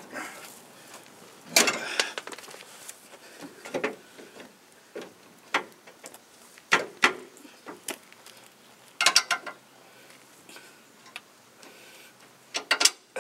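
Metal clicks and knocks from bolting a chrome rear bumper to its bracket from underneath by hand and with a ratchet. Single knocks are scattered through, with quick runs of several clicks about two-thirds of the way in and near the end.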